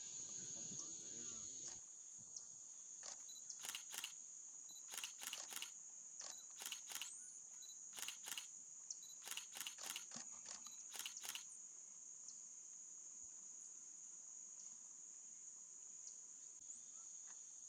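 Steady high-pitched insect chorus of crickets or cicadas, with a run of sharp clicks in quick pairs and triplets through the middle.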